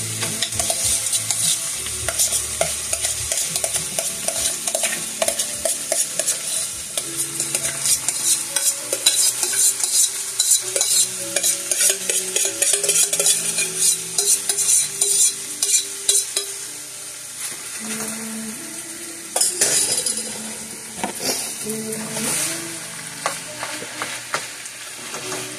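Browned hamburger sizzling in a frying pan as a filling mixture is scraped in from a steel saucepan and stirred with a spatula, with many quick scrapes and taps; the scraping eases off in the last third.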